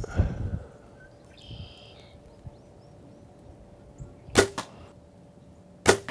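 Compound bow shots: a dull thump right at the start, then two sharp cracks of the string releasing, about a second and a half apart, each with a short ringing tail.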